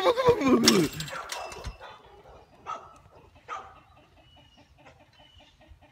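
A goat bleating, its loud cry falling in pitch and ending about a second in. After that comes a quieter stretch, and near the end a fast, even run of soft short calls, about five a second.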